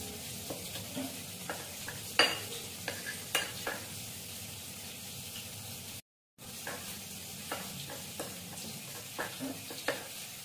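Steel spoon stirring and scraping against a ceramic plate, mixing spice powders with a little water into a paste, with scattered sharp clinks over a steady faint hiss. The sound drops out briefly about six seconds in.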